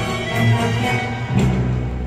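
Live orchestra playing, with a deep low note coming in about one and a half seconds in.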